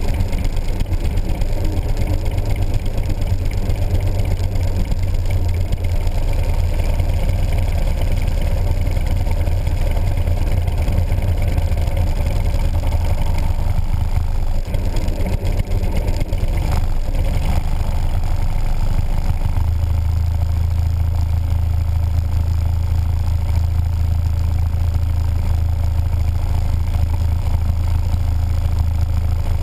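Motorcycle engine running at low riding speed, heard from the bike itself. It is a steady low hum that wavers through the middle stretch and settles again about twenty seconds in.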